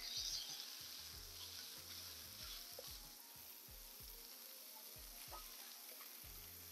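Ground-beef patty sizzling on a hot Blackstone flat-top griddle as it is smashed flat under a steel burger press and parchment paper. The sizzle flares up as the press comes down at the start, then settles to a steady hiss.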